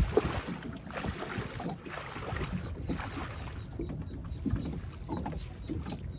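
Water splashing and sloshing, with irregular low knocks, the sound of working in shallow floodwater around a small boat.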